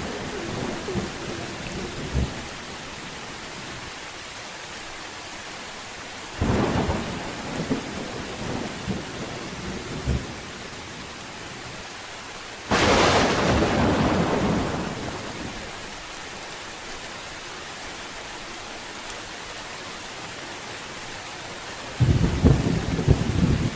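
Steady rain with a thunderstorm overhead: thunder rumbles about six seconds in and again near the end, and a sharp thunderclap about thirteen seconds in rolls away over a couple of seconds.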